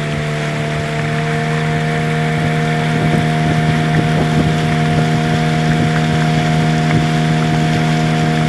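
Outboard motor running at a steady cruising speed, driving a small boat along a river, with water rushing past the hull.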